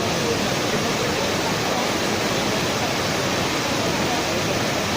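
Steady, even rushing noise of blast furnace plant machinery, with no strokes, rhythm or change in level.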